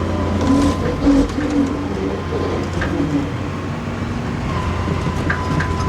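Excavator's diesel engine running steadily, a constant low drone with a thin steady whine over it and a few faint knocks.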